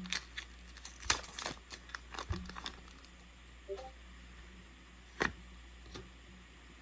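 Foil trading-card booster pack being torn open and crinkled: a run of sharp crackles over the first few seconds, then a few scattered clicks as the cards are handled.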